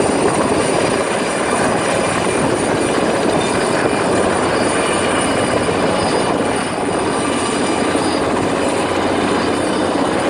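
Helicopter running steadily overhead, a loud continuous rotor and engine noise with a thin high whine.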